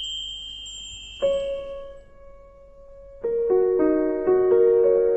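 A high ding rings out and fades in the first couple of seconds. Then piano music begins: one held note about a second in, and from about three seconds in a gentle melody of repeated notes.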